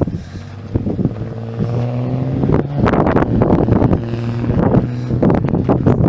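Gusting wind buffeting the phone's microphone in rough, uneven blasts, with a steady low droning hum underneath in two stretches, about a second in and again past the middle.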